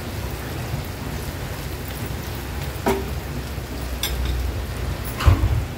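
Prawns frying in butter and garlic in a pan, a steady sizzle, with a few sharp knocks of a spatula against the pan as they are turned, about three seconds in, four seconds in and near the end.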